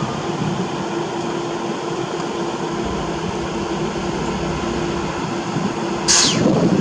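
John Holland Plasser & Theurer track machines, a USP 5000 RT ballast regulator among them, rolling past in convoy: a steady running noise of engines and wheels on rail with a faint steady hum. About six seconds in, a brief sound falls sharply in pitch.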